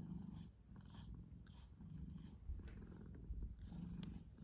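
Domestic cat purring steadily close up, the purr swelling on each breath about once a second.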